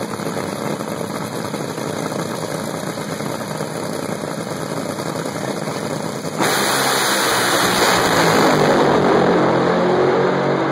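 Drag racing car's engine running at the starting line, then a sudden, much louder full-throttle launch about six seconds in that stays loud as the car heads down the track.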